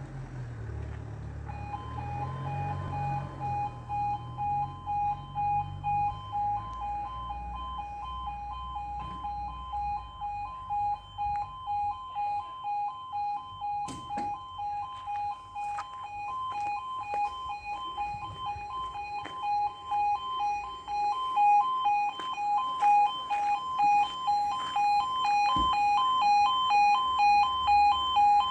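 UK level crossing warning alarm, the two-tone yodel, starts about a second and a half in and alternates rapidly between two high pitches in a steady pulsing pattern: the crossing is closing for an approaching train. A low rumble dies away over the first several seconds, and the alarm grows louder in the last few seconds.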